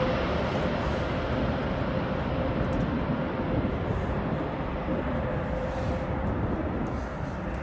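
Jet engines of a landing Airbus A320: a steady rushing roar with a faint held hum, slowly fading as the highest part of the sound drops away.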